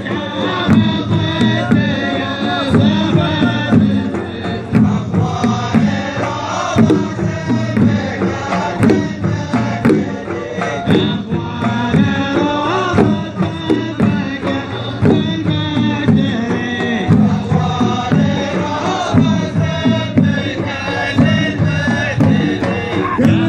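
A large group of men chanting in unison over steady drum beats: traditional Gulf ardah sword-dance music performed live.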